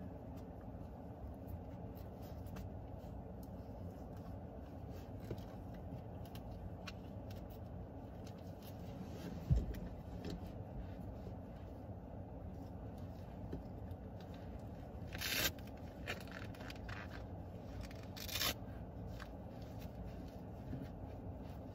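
Rustling, scraping and clicking of a seatbelt cover being worked onto a car seatbelt, over a steady low rumble. A dull thump comes about halfway through, and two short rasping rips follow later.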